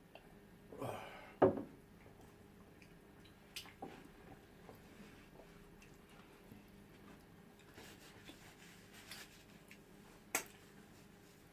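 Quiet mukbang eating sounds: soft squishy smacks and mouth noises from eating eba with soup, and a few sharp clicks. The loudest click is about one and a half seconds in, with another near the end.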